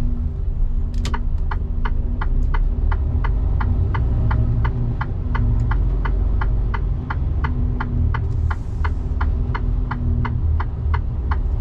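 Turn-signal ticking steadily in a truck cab, about two to three clicks a second, over the low drone of the idling truck engine and a steady hum.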